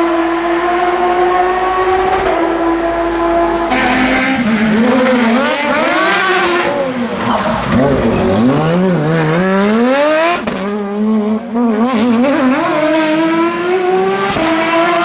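Porsche flat-six rally car engine at high revs, held steady for a few seconds, then revving up and down through quick gear changes and throttle lifts, and finally pulling up through the revs under hard acceleration near the end.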